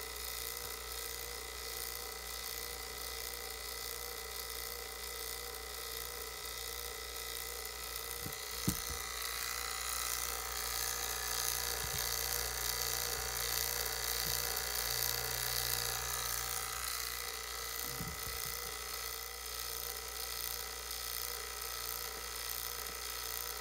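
HVAC vacuum pump running steadily while pulling a deep vacuum on a jar of water, a constant motor drone with a high whine, broken once by a sharp click about nine seconds in.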